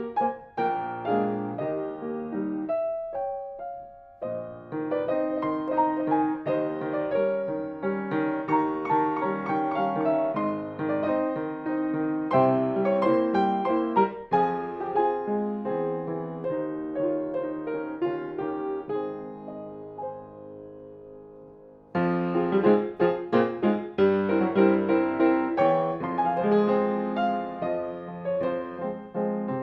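Restored 1961 Broadwood baby grand piano being played. The music dies away to a fading note and then resumes suddenly and louder about two-thirds of the way through.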